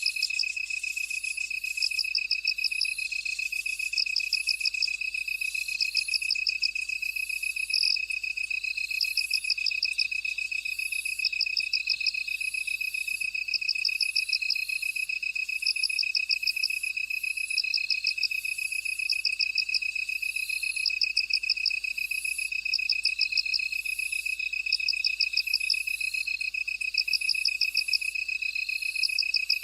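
Insects calling in chorus: one gives a steady, unbroken high trill, while another repeats bursts of rapid chirps every second or two.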